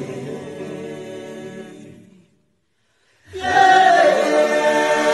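Choir singing, fading out about two seconds in; after a second of silence, a louder stretch of choral singing starts.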